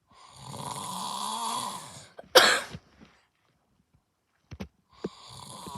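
A man snoring in his sleep: one long rattling snore of about two seconds, then a single short, sharp, loud burst of breath, the loudest sound here. A second snore starts near the end.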